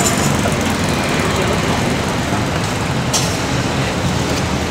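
Busy street ambience: steady road-traffic noise with a low engine hum, and one short clack about three seconds in.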